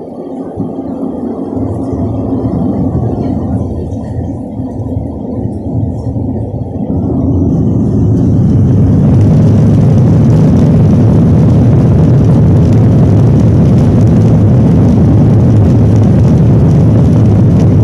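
Jet airliner's engines heard from inside the cabin over the wing, spooling up to takeoff thrust. The noise grows about a second and a half in, swells again about seven seconds in, and then holds loud and steady.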